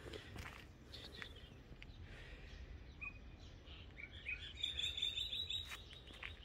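Small birds chirping: a short note about three seconds in, then a quick run of high chirps, over a steady low rumble.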